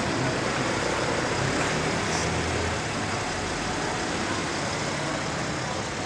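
Road traffic on a busy city street: a steady wash of car engines and tyres, with a deeper engine rumble that fades about three seconds in.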